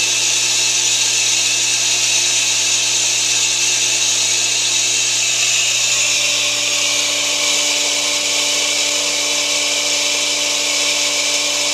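Well pump motor running steadily to fill a newly installed pressure tank with water: a constant hum with a strong hiss above it.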